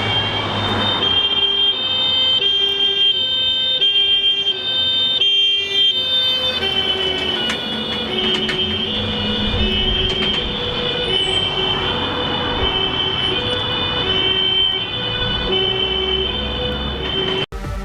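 German fire engine's two-tone siren (Martinshorn) sounding a steady high–low alternation, each tone about 0.6 s long. From about halfway through, a heavy vehicle engine rumbles underneath. The sound cuts off abruptly just before the end.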